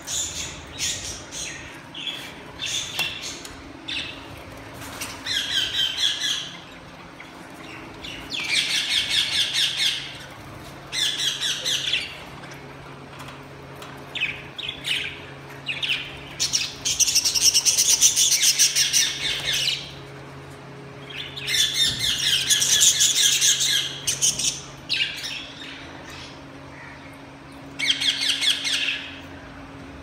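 Indian ringneck parakeets squawking: harsh screeching calls in bouts of one to three seconds, the longest and loudest about two thirds of the way through, with short chirps between and a faint steady low hum underneath.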